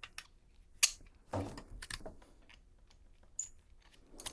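Scattered light clicks and taps of 3D-printed plastic gun parts being handled over a cutting mat, the sharpest click about a second in.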